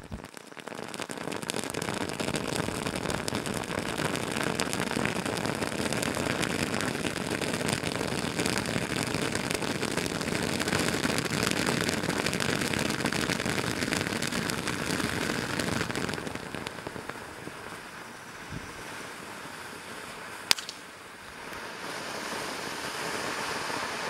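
'Four Square' ground fountain firework spraying sparks with a dense crackling hiss that eases off about two-thirds of the way through. A single sharp pop follows, then the hiss grows again as the next fountain in the set burns.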